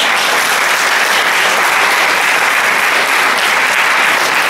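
Audience applauding, a steady sustained clapping.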